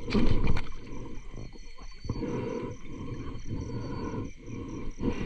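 A diver breathing hard in and out through a snorkel, several breaths one after another with short pauses between them.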